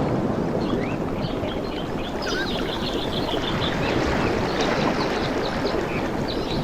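Water washing and lapping steadily, with many small birds chirping over it in quick short calls.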